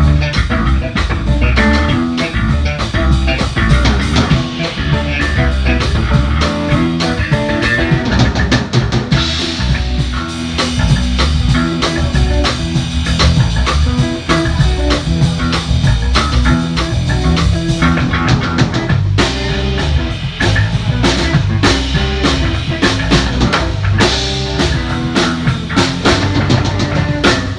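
Loud rock music with drum kit, bass and guitar, played with a steady beat.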